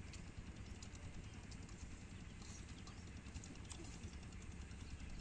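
Quiet outdoor ambience: a steady low rumble with faint, scattered light clicks.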